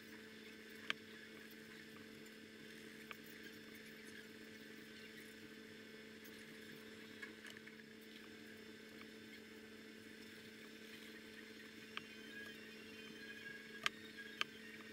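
Quiet room tone with a steady low hum, broken by a few faint sharp clicks, the loudest near the end.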